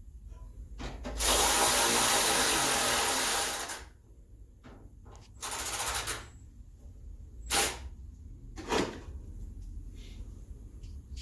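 Cordless power drill running on a body-panel screw: a long run of about two and a half seconds, then a second, shorter run about a second later, followed by a couple of sharp knocks.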